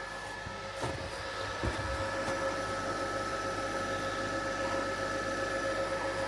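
A portable induction cooker running with a steady whine from its fan and coil while a small pot of water on it hisses as it nears the boil. A few light handling knocks in the first two seconds.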